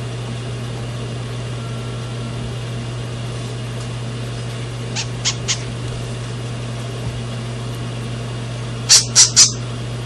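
Parrot chick calling from inside its opened shell: three faint short, high peeps about halfway, then three loud ones near the end. A steady low electrical hum runs underneath.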